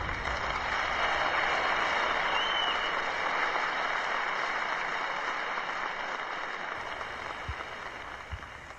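Audience applauding, a dense steady clatter of clapping that slowly fades out.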